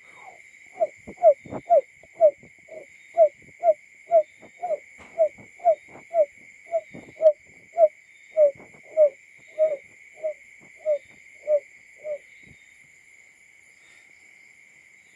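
Barred buttonquail call: a long series of about twenty short, low hooting notes, roughly two a second, which stops about twelve seconds in.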